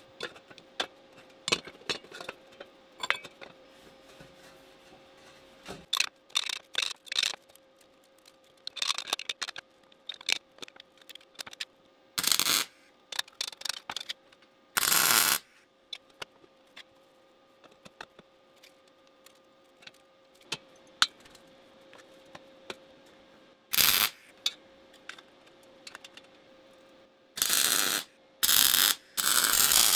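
Scattered light clicks and metallic taps from tools and parts being handled, over a faint steady hum. Several short hissing bursts of about a second each come midway, and three close together near the end.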